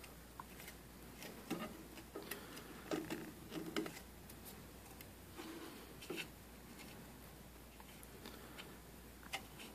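Faint, scattered small clicks and light taps of a red PLA 3D print being handled and turned over in the hands.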